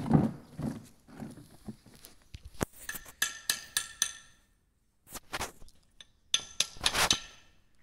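Metal hand tools clinking and tapping on a cast-iron tractor gearbox cover, in two quick runs of sharp, ringing strikes with a short pause between them. The cover is being worked on to refit the spring-loaded detent balls for the gears.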